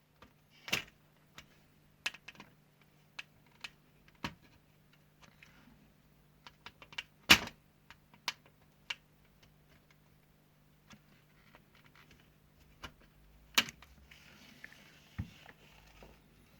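Irregular clicks and taps of hands and tools working on an LED lamp's plastic latches and LED strip, two of them sharper and louder than the rest. A faint steady low hum runs underneath, and a faint hiss rises for about two seconds near the end.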